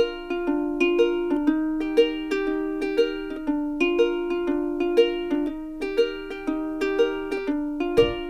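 Background music: a light plucked-string melody with a steady beat, accented about once a second. A low bass comes in near the end.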